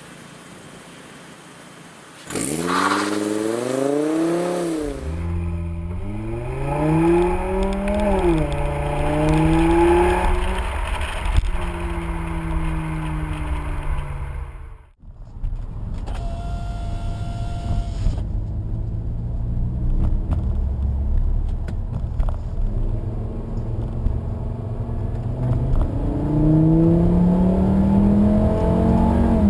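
Volkswagen Jetta Mk6 engine heard through an AWE Touring Edition aftermarket exhaust. It comes in suddenly about two seconds in and is revved up and down several times. After a brief break midway it runs steadily, then rises in pitch as it revs up near the end.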